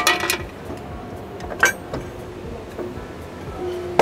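Hydraulic ironworker punching a 6 mm steel angle: sharp metallic clanks with a short ring. One comes right at the start and another about a second and a half in, from the punch stroke and the steel knocking on the tooling.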